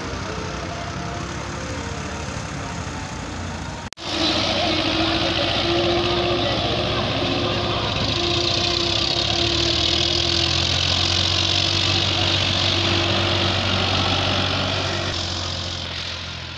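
Diesel tractor engines running steadily under load while dragging a cultivator and a leveller through sandy soil. About four seconds in the sound cuts out briefly, then comes back louder and closer.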